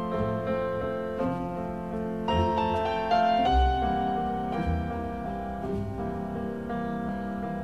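Background piano music: slow notes, each held and overlapping, changing about once a second.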